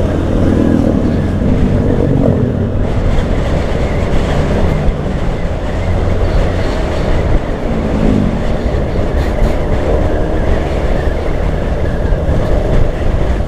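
Steady wind rush and heavy low road rumble on the microphone of a moving Yamaha Grand Filano scooter, with the scooter's engine running underneath.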